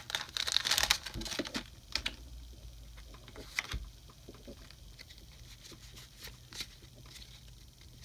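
Foil wrapper of a Pokémon trading card booster pack crinkling in the first second as it is torn open, then scattered light clicks and taps of the cards being handled.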